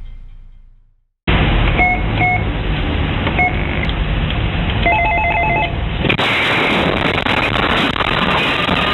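Intercom door-camera audio of a household gas explosion, narrow and phone-like. A few short electronic beeps and a quick run of beeps about five seconds in are followed by an abrupt change to a harsher, hissing noise as the blast strikes. A news intro tune fades out just before.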